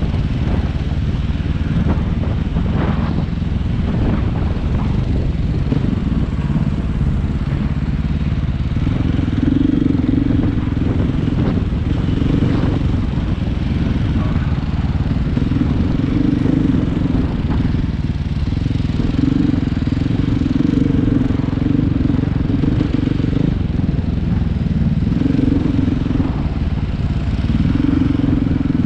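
Engine of a ridden vehicle running steadily under way. Its hum swells and eases in stretches through the second half.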